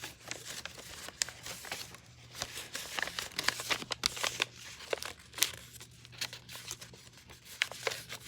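A sheet of paper being folded and creased by hand: irregular crinkles, rustles and sharp crackles as the flap is folded down and pressed flat.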